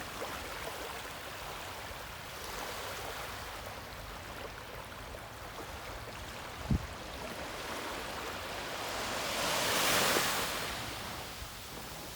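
Ocean waves washing on the shore, one wave swelling to a peak about ten seconds in and then falling away. A brief low thump a little past halfway.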